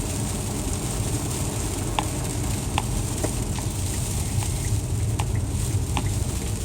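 Steady low rumble of a car driving on snowy roads, heard inside the cabin, with irregular sharp ticks of ice pellets hitting the windshield.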